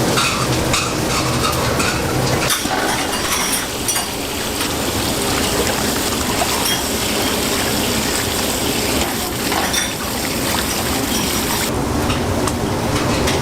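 Busy noodle-kitchen cooking noise: a steady rush of liquid sloshing and gushing, with a few faint clinks of metal.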